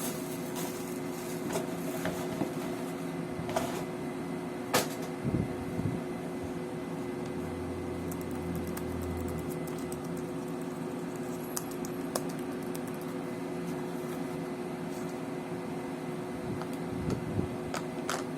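Steady hum of a fan or air conditioner with a few sharp clicks and knocks, likely from handling the unboxed items.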